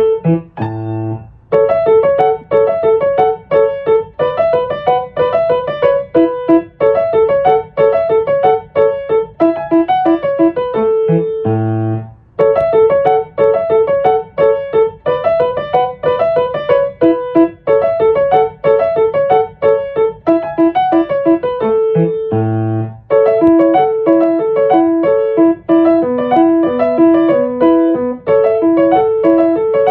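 Solo piano music: a quick, even run of notes, broken by held low chords about a second in, near twelve seconds and near twenty-two seconds.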